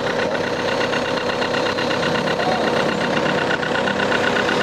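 An engine idling steadily, with a fast, even pulse in its note.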